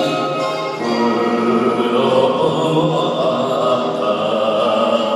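A man singing a Japanese song into a microphone over a karaoke backing track, heard through the hall's PA, holding long notes.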